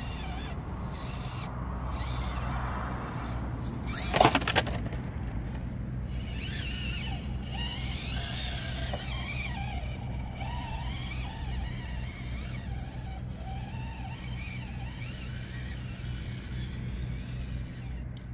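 Small RC mini crawler driving, its electric motor and gears whining and wavering in pitch with the throttle. There is a short, loud clatter about four seconds in.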